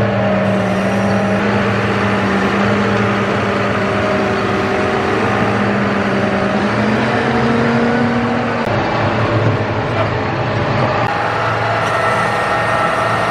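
John Deere tractor's diesel engine running close by as the tractor manoeuvres, a steady engine note that rises slightly about seven seconds in and shifts again a second or so later.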